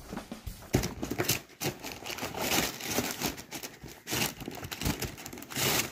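Paper rustling and crinkling as a shoe is handled in its tissue-lined cardboard box, with irregular louder crackles.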